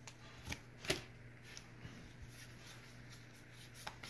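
Pokémon trading cards handled in the hand: a few soft clicks and slides of card on card in the first second, another near the end, over a faint steady low hum.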